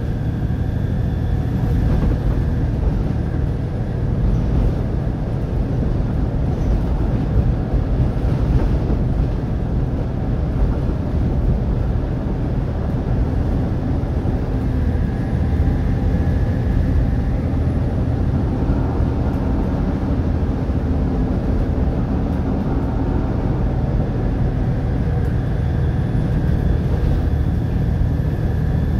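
Volvo B7TL double-decker bus's six-cylinder diesel engine running under way, a steady low rumble with a faint whine that rises and falls a few times.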